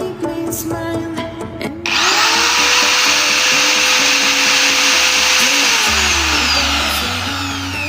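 Ryotech 500-watt electric angle grinder switched on about two seconds in, its whine rising quickly as the motor spins up. It runs steadily at full speed for a few seconds, then is switched off and winds down, the whine falling away. Background music plays under it at the start and end.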